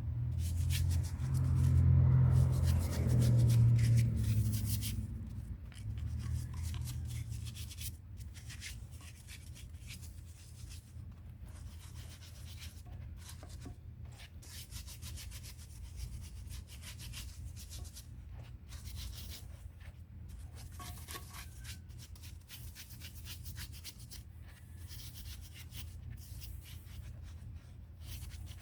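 Hand scrubbing of old, rough concrete: rapid, uneven scratchy rubbing strokes. A steady low hum runs underneath and is louder for the first few seconds.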